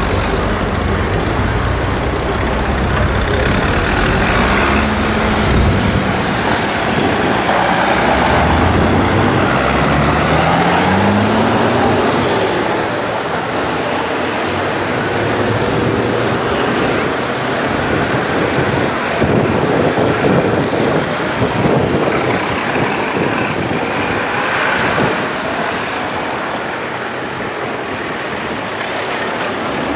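Several tractor engines running as they drive past in a line, with one engine rising in pitch about ten seconds in as it speeds up.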